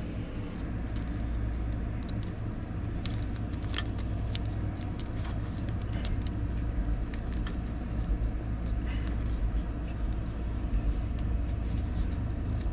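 Light clicks and taps from hands fitting an electrical wiring connector, scattered irregularly over a steady low background rumble.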